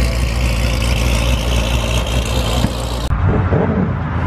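C7 Corvette's V8 running with a deep, steady exhaust rumble as it pulls away. After a cut about three seconds in, a BMW 1 Series coupe's engine revs, its pitch rising and falling.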